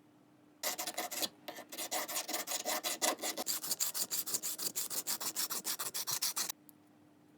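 A hand tool scraping back and forth over the bare metal of a vintage pipe wrench in fast, even strokes, about six a second, with a short break about a second in.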